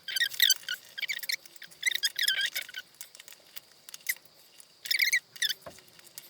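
Stiff plastic doll packaging squeaking in short, high-pitched bursts as it is rubbed and worked loose, in three spells, with a light knock near the end.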